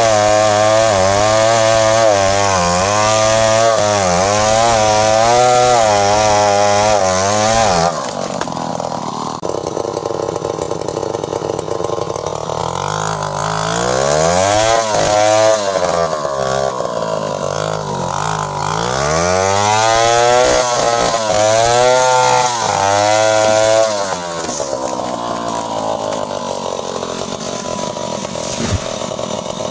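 Two-stroke chainsaw running at high speed with a wavering pitch for about eight seconds, then dropping back. Its revs rise and fall several times before it settles to a lower, steadier speed near the end.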